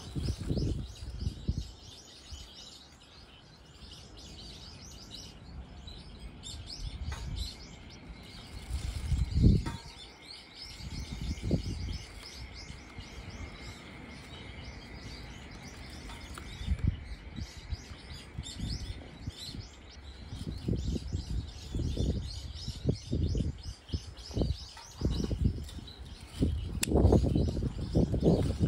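Birds chirping over and over in the background. Low rustles and thumps break in at times, the loudest about nine seconds in and near the end.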